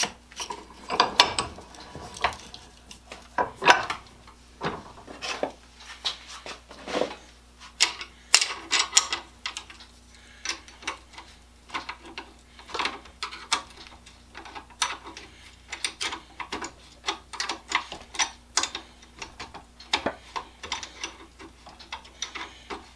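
Small metal clicks and clinks, a few a second and irregular, as the hedge shears' pivot bolt, washers and nut are handled and threaded together.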